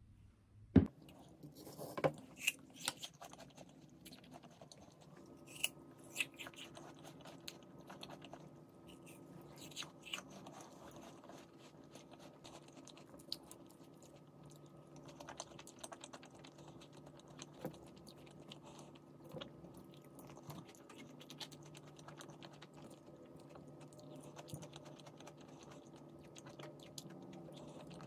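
Eating sounds: chewing and crunching with scattered sharp clicks. A steady low hum joins about five seconds in.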